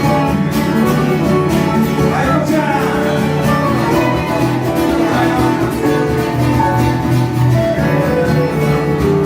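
Live acoustic band music with guitar to the fore, a steady passage of an original country-style song.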